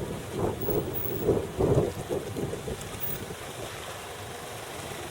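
Low rumble with uneven buffeting from wind on the microphone, over a four-wheel drive crawling through a rocky creek crossing; it eases after about two seconds into a steady hiss.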